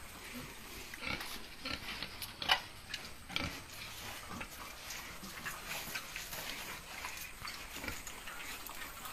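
Pigs grunting in short, irregular calls, the loudest about two and a half seconds in.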